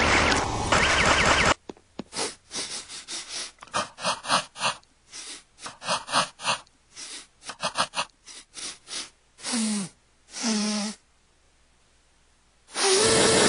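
Cartoon soundtrack chopped into a stutter edit: after a loud first second or so, short clipped vocal snippets repeat rapidly, the same group of sounds coming back about every two seconds. Near the end come two short sounds falling in pitch, then a second or two of silence.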